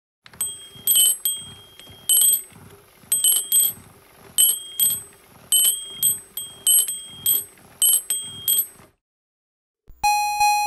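Citizen Small World Maison karakuri clock striking its small metal bells, about a dozen quick ringing strokes in irregular groups, over a steady motor hum and soft mechanical knocks. Near the end the clock's chime melody begins.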